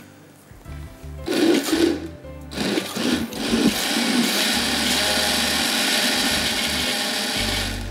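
Electric blender blending chimichurri sauce. It runs in two short bursts, then steadily for a few seconds, and stops near the end. Background music plays underneath.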